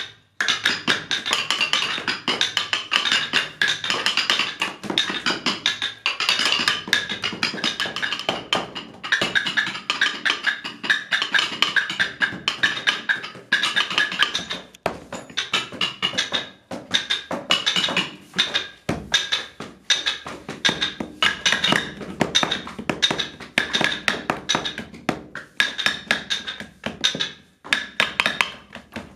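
Background music with a fast, steady beat of sharp wood-block-like percussion strokes.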